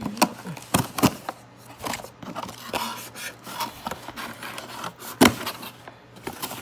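Cardboard shipping box being opened by hand: flaps pulled and folded back, with a run of scrapes and sharp knocks, the loudest about five seconds in.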